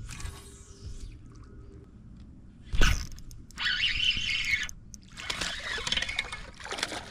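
A single sharp knock, then several short bursts of splashing water.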